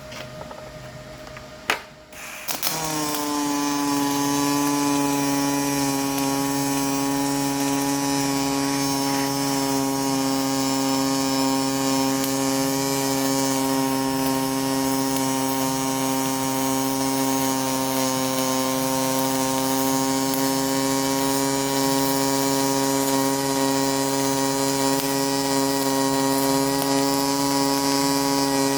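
Pulse MIG welding arc from an HTP Pro Pulse 220 at about 500 inches per minute wire feed and +6 voltage trim. A sharp click comes just before the arc strikes about two and a half seconds in. The arc then settles, dropping slightly in pitch, into a steady, even pitched buzz.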